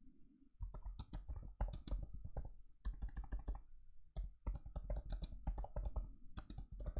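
Typing on a laptop keyboard: rapid runs of keystrokes that start just under a second in, with a short pause about four seconds in.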